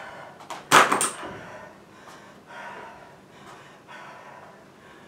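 A jump rope and feet striking the floor a couple of times about a second in as a set of double-unders breaks off, then a few breaths.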